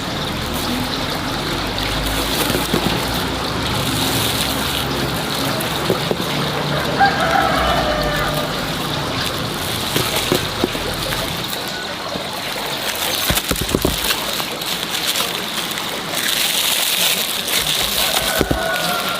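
Water running and splashing steadily, with a rooster crowing briefly about seven seconds in.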